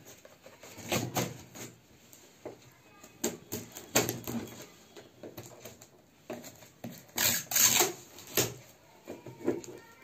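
Knife blade scraping and slitting packing tape along the seams of a cardboard box: a series of irregular scratchy strokes, the loudest a longer rasping run about seven to eight seconds in.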